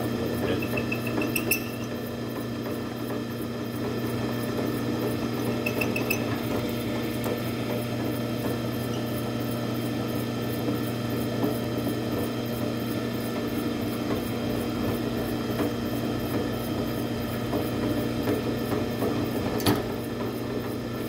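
Drill press running with a Delta hollow-chisel mortising attachment cutting into yellow pine: a steady motor hum under the scratchy grinding of the bit and square chisel chewing through the wood. A sharp click near the end.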